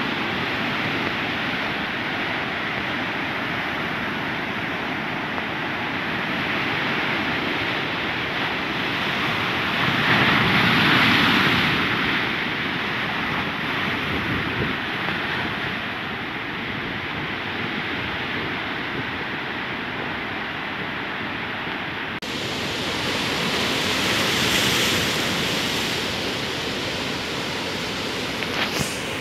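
Sea surf breaking and washing over a shore of black volcanic rocks: a steady rush of water that swells with a bigger wave about ten seconds in. About two-thirds through the sound cuts abruptly to a similar rush that swells again, and a couple of brief knocks come near the end.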